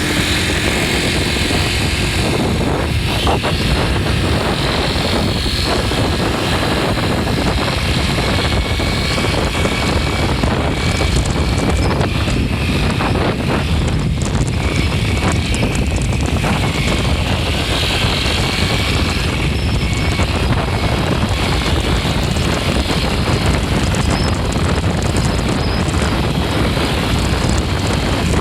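Fourth-generation Yamaha Cygnus X scooter's 125 cc single-cylinder engine and drivetrain running steadily and loudly, with the abnormal noise the owner is trying to track down, which is present from early in the recording.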